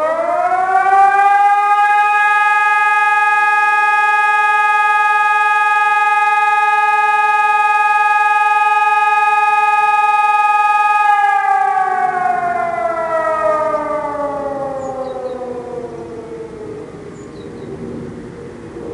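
Hörmann ECN 1200 electronic siren and E57 motor siren sounding one blast of the German fire-alarm signal. The tone rises quickly to a steady howl, holds for about eleven seconds, then winds slowly down in pitch.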